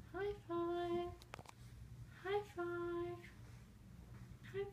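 A person's voice repeating a two-note sing-song call, a short rising note then a longer held one, three times about two seconds apart, cueing a puppy for a high five. A short click about a second and a half in.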